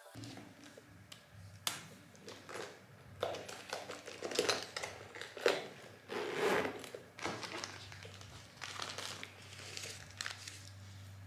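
Irregular rustling and crinkling as a person handles a shoulder bag and a disposable face mask, over a low steady hum.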